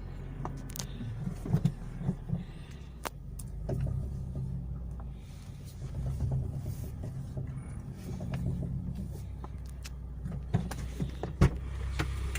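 Mitsubishi Lancer X with a steady low engine hum and irregular sharp knocks and clicks, the loudest about eleven seconds in. This is the front-suspension knock the owner is tracking down, suspected in the steering rack or a CV joint.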